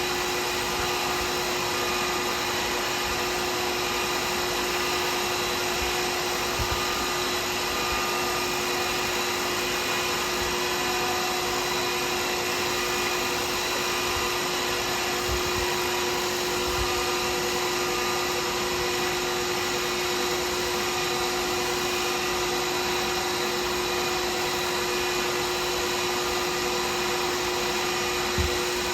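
Workshop machine motor running steadily, a continuous whir with a constant hum tone and no change in speed, with a couple of faint knocks.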